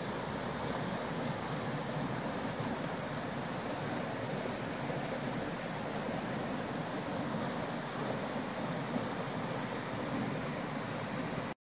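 Steady rush of a mountain torrent's flowing water, with some wind on the microphone; it cuts off abruptly near the end.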